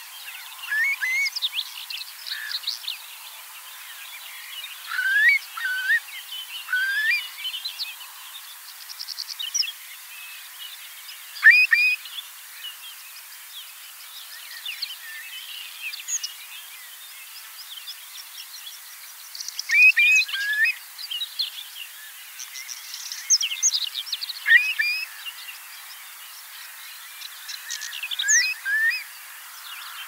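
Eurasian curlew calling: bursts of short whistled and chirping notes every few seconds, over a steady faint hiss.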